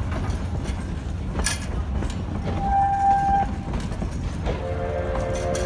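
Durango & Silverton narrow-gauge passenger cars rolling past: a steady low rumble of wheels on rail with scattered clicks, a sharp clank about a second and a half in. A brief high steady tone sounds about three seconds in, and several steady tones sounding together begin about a second before the end.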